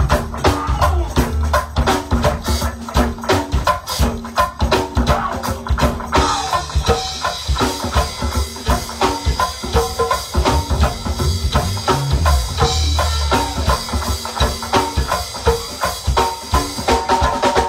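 Live go-go band playing: congas and drum kit keep a driving, steady beat over a bass line, the sound filling out about six seconds in.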